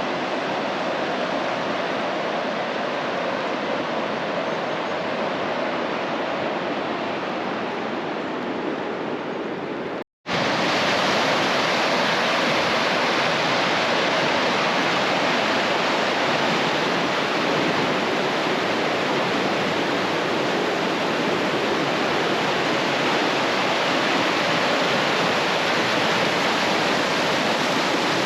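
Steady rushing of a large spring's outflow pouring down over rocks. It cuts out for a moment about ten seconds in and comes back a little louder.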